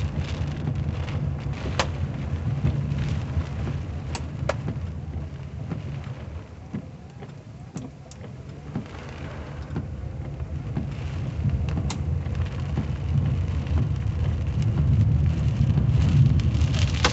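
Heavy rain pounding on a car's roof and windshield, heard from inside the cabin, over a low, steady rumble of wind buffeting the car. A few sharp ticks of drops striking the glass come through. The din eases about six seconds in and builds again toward the end.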